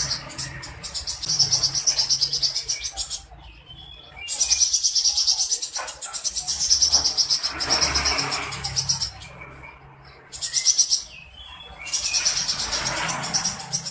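A songbird-training 'masteran' recording of combined bird sounds. A high, rapidly pulsing trill comes in stretches of a few seconds that cut off and start again abruptly, with softer chirping calls mixed in.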